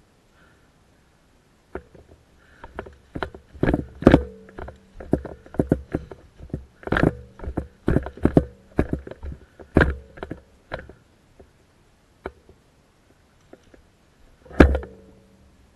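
Quick footsteps crunching on dry pine needles and leaves, with knocks and rattles of gear and the rifle-mounted camera jostling as the player moves, thinning out towards the end and ending with one louder knock.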